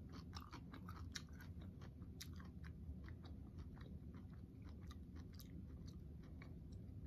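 Close-miked chewing of a pickled pepperoncini pepper, seeds and all: faint, with many small irregular wet mouth clicks several times a second.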